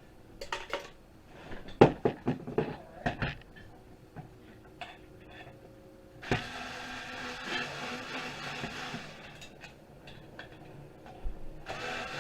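Metal computer-server parts knocking and clattering as they are handled, then a steady mechanical whir that runs for about four seconds and starts again near the end.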